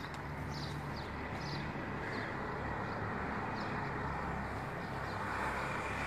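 Outdoor street ambience: a steady rush of distant traffic, with small birds chirping briefly now and then.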